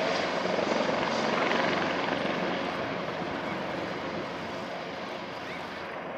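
Airbus H225 twin-turbine helicopter hovering low and descending to touch down at close range: a dense, steady rush of rotor and turbine noise that slowly drops in level.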